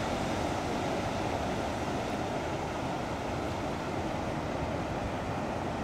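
Tidal bore surging upriver, its turbulent breaking front making a steady, low rushing of water.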